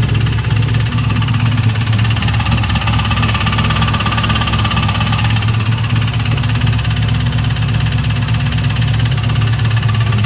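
2002 Camaro Z28's LS1 V8 idling steadily with a rapid, regular knock, which the owner suspects is a spun bearing.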